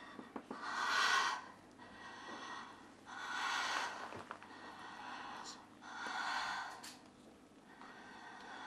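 A woman in labour breathing heavily: three long, noisy breaths about two and a half seconds apart.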